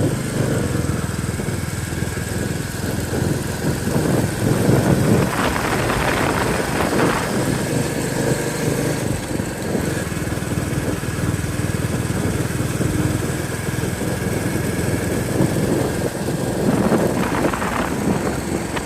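Royal Enfield Bullet 350's single-cylinder four-stroke engine running steadily while being ridden, with louder noisy gusts about five to seven seconds in and again near the end.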